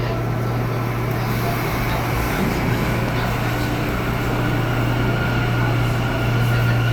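New York City subway train with a steady low hum and rumble that holds without a break.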